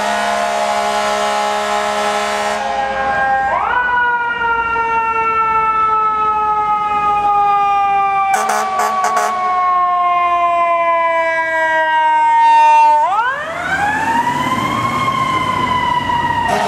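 Fire engine responding with its siren: a steady blare for about three seconds, then the siren winds up and slowly winds down in pitch over about nine seconds, and near the end winds up quickly again and starts to fall. A few brief sharp sounds cut in just past the midpoint.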